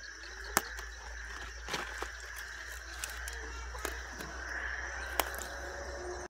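Steady high insect chirring from the field, crickets, with about half a dozen sharp clicks scattered through it over a low rumble.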